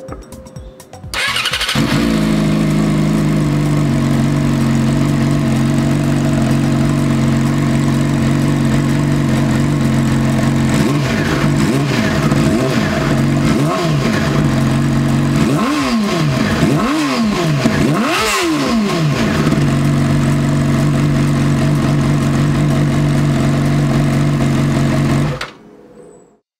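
Yamaha R6 inline-four sport-bike engine through a Pipewerks slip-on exhaust. It starts about a second in and idles steadily, is revved in a series of quick blips around the middle, then idles again and cuts off suddenly near the end.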